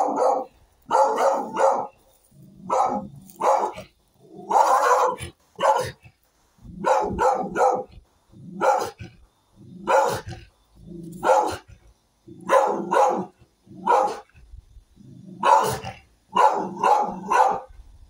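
A dog barking repeatedly at the person filming, in single barks and quick runs of two to four with short pauses between.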